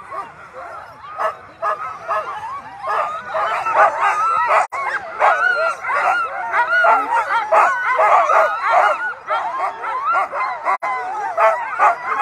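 A harnessed sled dog team of Alaskan huskies barking, yipping and yelping all at once, eager to run while held at the start line. The chorus grows louder and denser about three seconds in.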